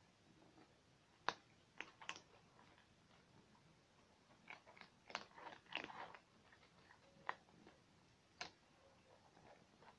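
Cats eating from a plastic bowl: scattered crunching and clicking bites, with a quick run of them about five to six seconds in.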